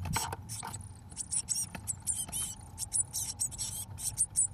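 Blue tit nestlings begging inside a nest box: a stream of rapid, high-pitched chirps, with a few scratchy scrapes in the first second.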